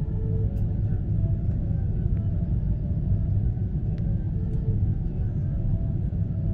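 Steady low rumble inside the cabin of a Boeing 777-300ER on approach: engine and airflow noise from its GE90-115B engines, heard through the fuselage.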